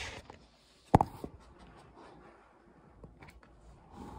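Soft rustling and handling noise close to the phone as a dog moves about beside it, with one sharp knock about a second in and a smaller one just after.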